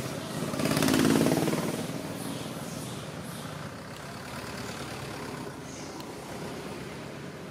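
A motor vehicle's engine passing close, loudest about a second in, then fading to a steady engine hum.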